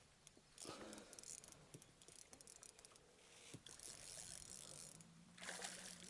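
Faint gear-driven clicking and rattling of a fishing reel being cranked, in a few short spells.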